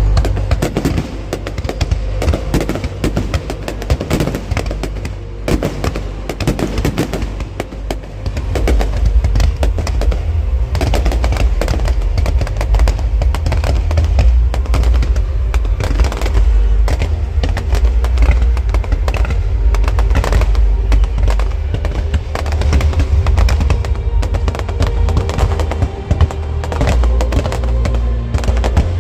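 Fireworks display: a dense, continuous run of bangs and crackles from bursting shells, over a heavy low rumble, with music playing underneath.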